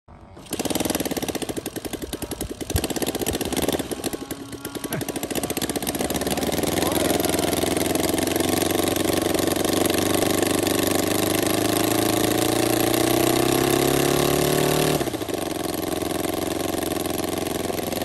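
Engine of a large-scale radio-control F4B-4 biplane model running on its stand. It is uneven for the first few seconds, then its pitch climbs steadily. About fifteen seconds in it drops abruptly to a lower, steady speed.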